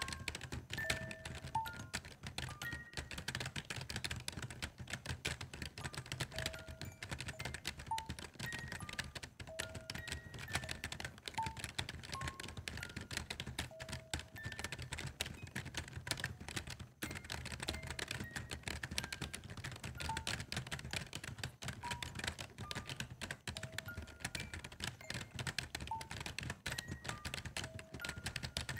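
Soft background music, a sparse melody of short single notes over a steady low drone, layered with a constant dense patter of fast clicks like keyboard typing.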